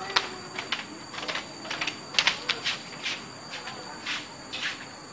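Steady high-pitched buzzing chorus of insects in the surrounding tropical forest, with irregular sharp clicks and knocks scattered through it, the loudest a cluster about two seconds in.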